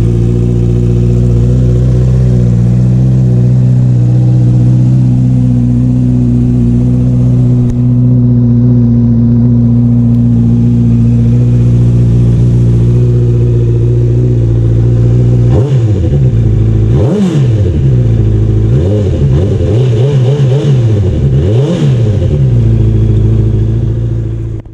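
Honda CBR650R's inline-four engine idling steadily, then revved up and let fall back about five times over the last several seconds.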